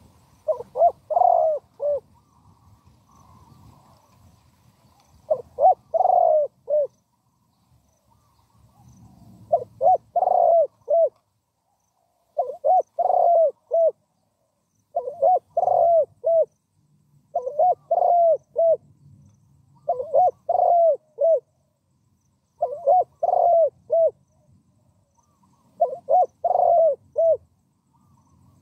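Spotted dove cooing: short phrases of three or four coos, repeated nine times about every two and a half seconds, with longer gaps after the first two phrases.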